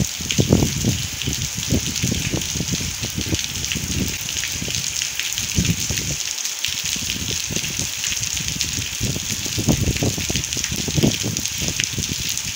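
Steady rain falling on a wet paved street: a constant hiss with irregular low rumbles underneath.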